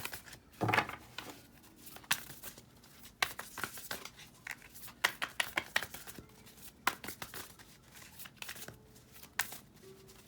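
Deck of oracle cards being shuffled by hand: irregular quick snaps and rustles of cards sliding against each other.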